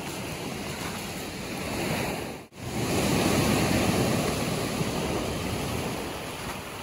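Surf breaking and washing up over a shingle beach: a steady rush of water that drops out for an instant about two and a half seconds in, then comes back louder.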